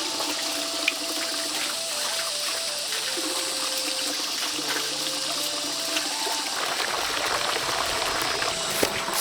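Steady rush of running water under a slow instrumental melody of long held notes.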